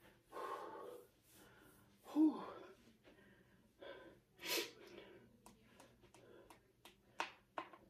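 A woman breathing hard and gasping between sets of jump rope, with one sharp sneeze-like burst about four and a half seconds in; she has a stuffy nose from a cold. Near the end, a run of light clicks and taps.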